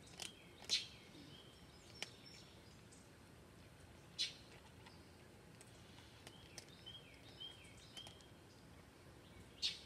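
Faint outdoor background with a songbird calling: a few sharp high chips scattered through, and a run of about five short whistled chirps, each dropping at the end, in the second half.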